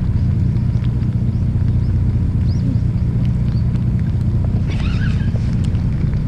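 Boat engine idling: a steady low rumble.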